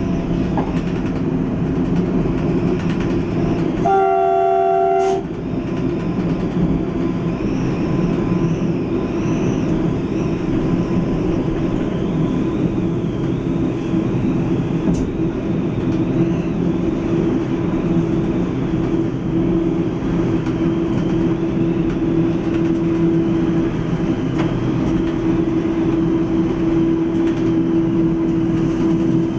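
ATR 220 diesel multiple unit running along the line, heard from the driver's cab, with a steady engine and transmission hum and rail noise. About four seconds in, the train's horn sounds once for about a second.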